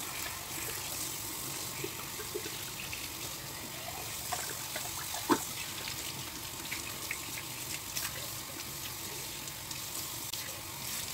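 Kitchen tap running in a steady stream onto a whole raw chicken being rinsed by hand in a sink. One sharp knock about five seconds in.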